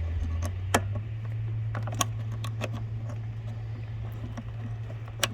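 Scattered small clicks and taps as a spade connector is pushed onto a replacement micro switch terminal and the phone is handled, over a steady low hum.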